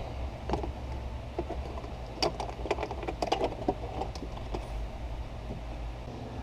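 Scattered light clicks and knocks of plastic dash trim and wiring plugs being handled and unclipped, busiest in the middle, over a steady low hum.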